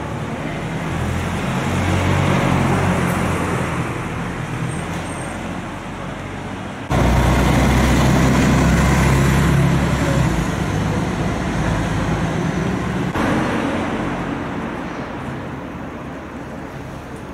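Street traffic: motor vehicles passing close by, the noise swelling and fading. A louder stretch of heavy engine noise starts abruptly about seven seconds in and drops off abruptly about six seconds later.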